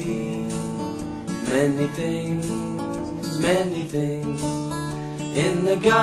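Children's song playing: acoustic guitar strumming under a singing voice.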